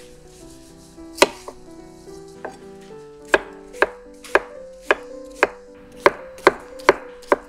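Chef's knife chopping a cucumber on a wooden cutting board. There are a few scattered cuts, then a steady run of about two knocks a second through the second half.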